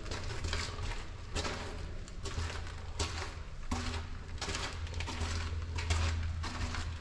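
Footsteps of a person walking through a narrow concrete tunnel, about one step a second, over a steady low rumble.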